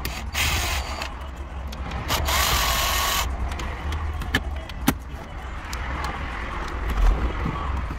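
Power screwdriver running in two short bursts, the second about a second long with a steady whine, as the two screws on top of the car radio are backed out. Then a few sharp clicks and a knock as the radio is pulled forward out of the dash.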